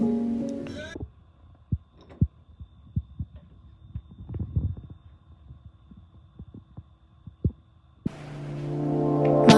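Soft, irregular low thumps of footsteps and a handheld camera moving, over a faint steady electrical hum. Background music fades out in the first second, and new music with a steady low note fades in near the end.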